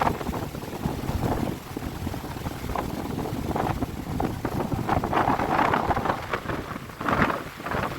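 Strong storm wind gusting over the microphone, with rough river water and rain, in uneven surges that swell about five seconds in and again near the end.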